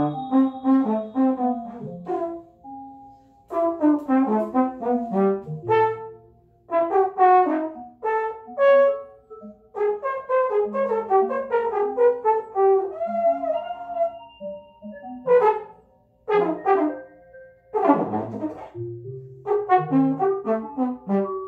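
Trombone improvising in short, broken phrases of quick notes, with pauses between them, over electronic accompaniment.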